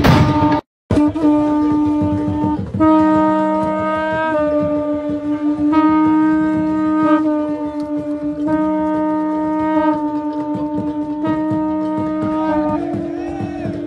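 Wind instruments sounding long held notes, shifting slightly in pitch every second or two, with a lower note joining in and dropping out. The sound cuts out completely for a moment just before one second in.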